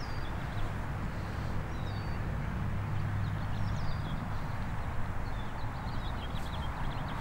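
Open outdoor ambience: a steady low rumble under an even hiss, with short, high bird chirps now and then.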